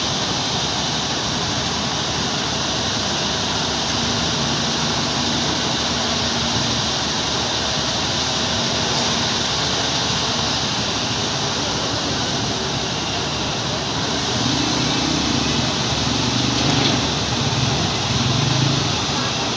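Steady engine noise of heavy machinery: lattice-boom crawler cranes running as they hold and lift a precast concrete bridge girder. The noise swells a little in the last few seconds.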